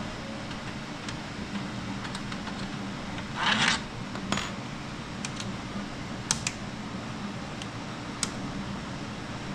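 Small screws and a screwdriver being handled while screws are taken out of the back panel of a laser engraver: a short scraping rustle about three and a half seconds in, then a few light metallic clicks. A steady low hum runs underneath.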